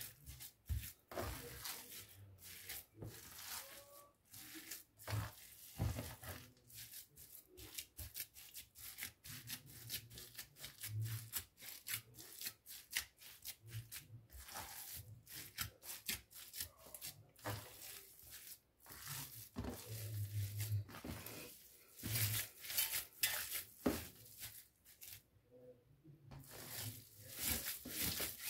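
Hands kneading raw minced-meat beyti kebab mixture in a perforated stainless-steel tray: a quick, irregular run of soft smacks and rubbing as the meat is squeezed, pressed and slapped down.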